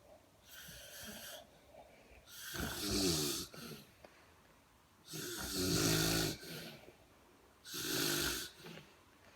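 Snoring in a steady rhythm: four snores, one about every two and a half seconds, the second and third the loudest, with a buzzing vibration in them.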